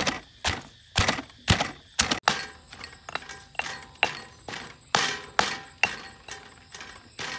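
Stone pestle pounding garlic, lemongrass and chili in a stone mortar, a steady rhythm of about two dull strikes a second.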